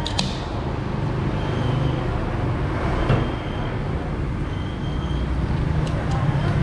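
Steady low rumble of road traffic, swelling slightly as engines pass, with a short knock about three seconds in.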